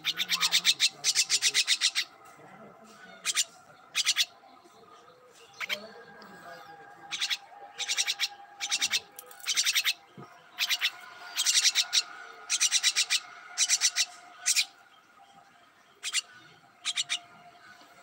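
Myna giving harsh, rapid chattering calls in short bursts, repeated every second or so.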